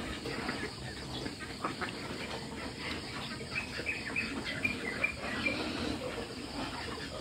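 A flock of domestic laying ducks feeding together, quacking here and there over the busy clatter of bills working the feed.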